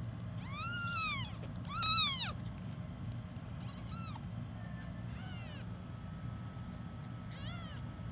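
One-week-old kittens mewing: about five short, high-pitched mews, each rising then falling in pitch, the loudest about two seconds in.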